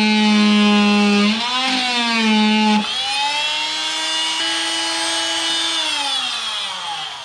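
Oscillating multi-tool running, a buzzing whine whose pitch dips and jumps as its blade trims stubs off a piece of holly. Near the end the pitch falls and the buzz fades as the tool winds down.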